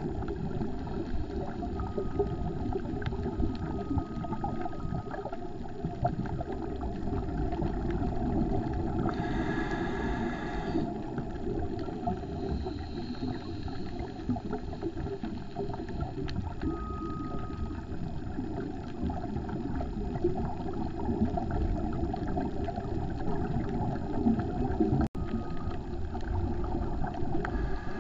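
Underwater noise picked up by a GoPro in its waterproof housing on a scuba dive: a steady low rumble with fine crackling. About nine seconds in, a brighter rush of sound lasts about two seconds.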